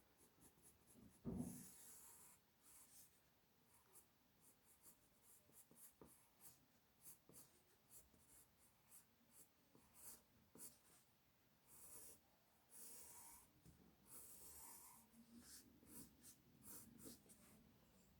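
Faint pencil strokes scratching on paper: short strokes and a few longer scrapes while a drawing is sketched, with one soft thump about a second in.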